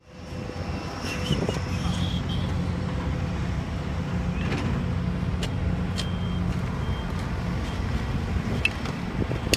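Heavy diesel lorry engine running steadily with a low drone, with a few faint short high beeps over it.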